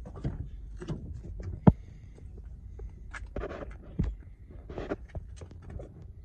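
Pickup truck's rear crew-cab door being opened by its outside handle: a sharp latch click about a second and a half in, then knocks and rustling as the door swings open.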